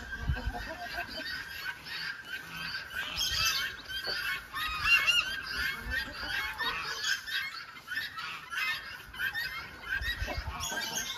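A flock of guineafowl calling: many short, harsh, repeated calls overlapping without a break.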